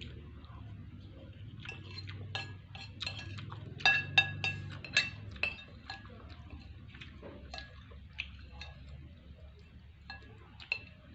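Spoon clinking and scraping against a plate, a run of sharp ringing clinks about four to five and a half seconds in, with scattered lighter clinks before and after.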